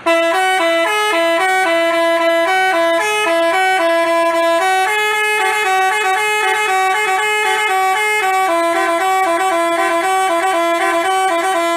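Telolet basuri musical bus horn playing a quick melody of changing notes. It starts and stops abruptly.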